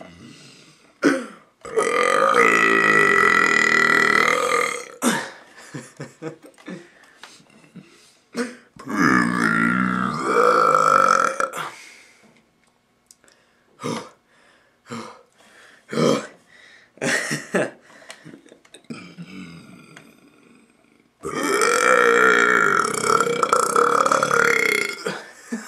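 A young man deliberately forcing out burps: three long, drawn-out burps of a few seconds each, with shorter sharp sounds in between.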